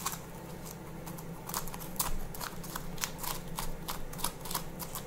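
Metal spoon scraping the seeds and stringy pulp out of a halved pumpkin. Irregular short scrapes and clicks start about a second and a half in.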